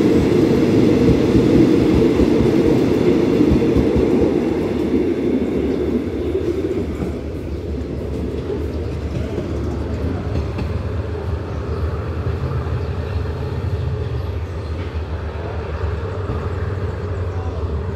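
Departing express train hauled by an Alsthom diesel-electric locomotive: its passenger carriages roll past on the rails, loudest for the first six seconds or so. The sound then fades as the train draws away, leaving a low rumble.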